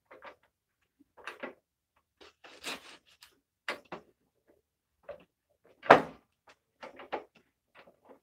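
Scattered knocks, clicks and scrapes of a clamp being adjusted and tightened on a table-saw fence jig, with one louder knock about six seconds in.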